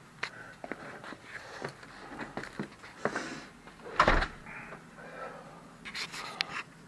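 A house door being handled: small clicks and knocks of the latch, then the door shutting with a thud about four seconds in.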